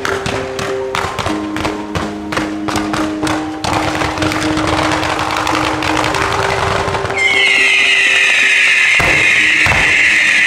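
Fireworks fired in rapid sequence under music with sustained notes: a quick string of launch pops over the first few seconds, then a denser rush of shots. About seven seconds in, a loud steady hiss sets in and becomes the loudest sound.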